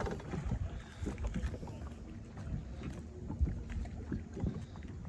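Wind buffeting the microphone, with small waves lapping and knocking irregularly against the side of a drifting boat.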